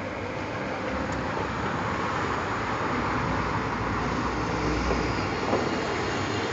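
Steady road traffic noise, slowly growing a little louder.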